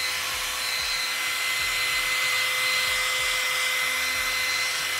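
Handheld hair dryer running steadily, a whine over a rush of air, blowing on freshly applied lace-wig glue at the hairline to dry it until it turns sticky.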